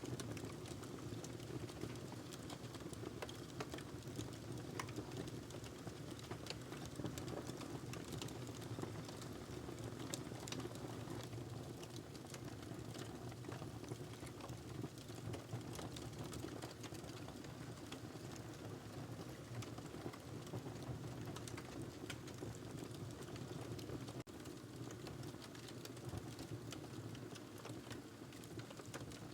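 Wood fire in a fireplace crackling, with frequent small irregular pops and snaps over a steady low hiss of the burning logs.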